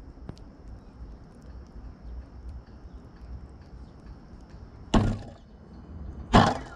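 Low wind rumble on the microphone of a grounded drone's camera, with a few faint ticks. Two short, loud thumps with a rustle come about a second and a half apart near the end.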